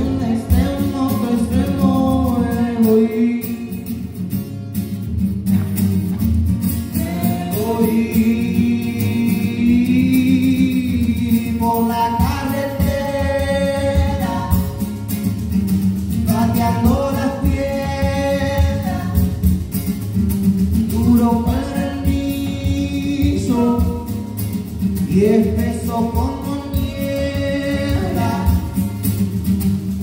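Live song: a voice singing long, held phrases over a strummed acoustic guitar.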